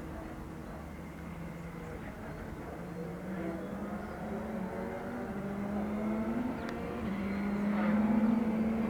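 An engine droning in the distance, one steady note with small pitch steps, slowly getting louder as it approaches.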